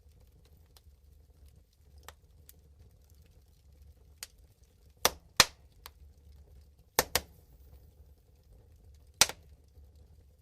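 Wood fire crackling in a sauna stove's firebox: scattered sharp cracks and pops, a few close pairs among them, over a faint low hum.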